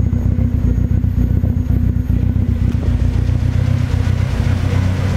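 Toyota AE86 Trueno's 4A-GZE four-cylinder engine idling steadily on a warm-up. The engine is due for a rebuild and is making blow-by smoke, which the owner puts down mainly to worn piston rings.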